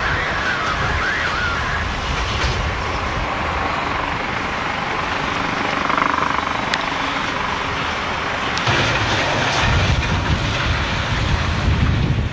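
Freight train rolling away on steel rails, a steady noise of wheels on track. In the last few seconds a low rumble of wind on the microphone comes up over it.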